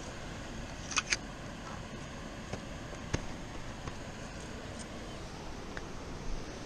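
Steady rushing background noise with a few sharp clicks of fishing tackle being handled: a quick double click about a second in and a single click about three seconds in.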